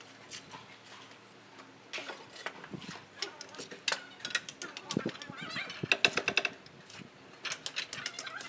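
Fired clay roof tiles clacking and a trowel scraping and tapping as tiles are set into mortar, a scatter of sharp clicks and knocks. In the middle a bird calls loudly for a couple of seconds.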